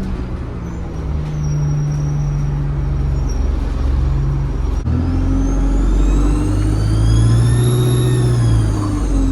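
ADL Enviro 200 bus engine under acceleration. Its note changes abruptly about five seconds in, as at a gear change, and a high turbo whistle then rises in pitch, peaks and falls away near the end as the engine eases off.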